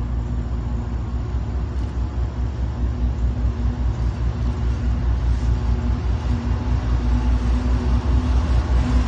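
CSX diesel freight locomotive approaching, its engine running with a steady low drone that grows gradually louder as it nears.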